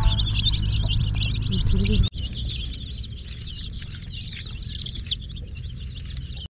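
A group of baby chicks chirping rapidly and continuously in many short, high peeps, over a steady low hum. The hum is loud for the first two seconds, then drops suddenly and carries on quieter while the peeping continues.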